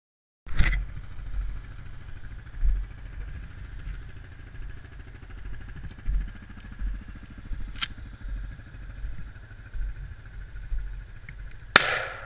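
ATV engine idling steadily, starting about half a second in, then a single loud .410 shotgun shot near the end.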